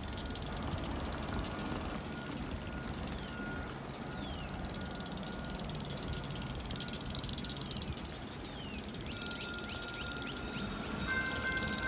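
Diesel locomotive running slowly as it approaches with its train: a steady low engine rumble, with birds chirping over it. Several high steady tones set in near the end.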